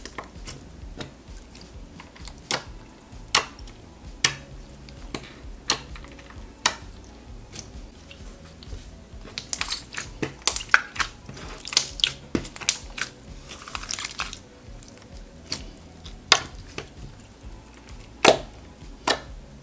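Clear slime pressed, folded and poked by hand, giving irregular sharp wet pops and clicks, with a denser run of squishing about halfway through.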